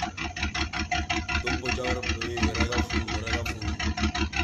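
A VW Citi Golf's engine idling, heard close to the tailpipe as a steady, even pulsing exhaust note.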